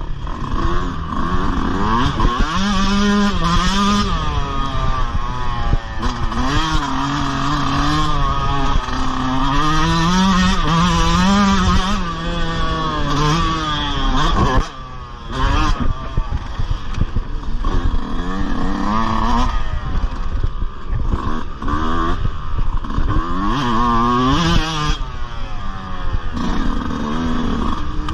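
Yamaha motocross bike's engine being ridden hard, its pitch rising and falling over and over as the throttle is opened and closed and the gears are shifted, with a brief sudden drop in the engine sound about halfway through.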